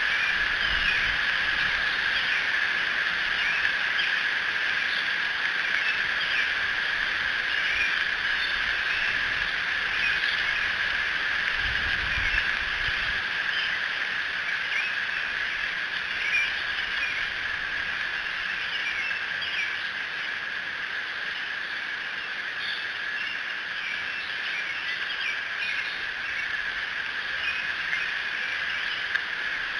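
Night-time outdoor chorus: a steady high drone with many small chirps scattered over it, typical of frogs and insects calling in summer woods. A soft low rumble comes in briefly near the start and again about twelve seconds in.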